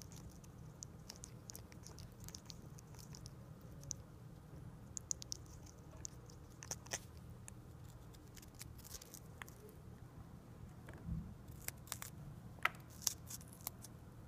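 African grey parrot biting and chewing a strawberry: irregular soft beak clicks and wet little crunches, with a low thump about eleven seconds in.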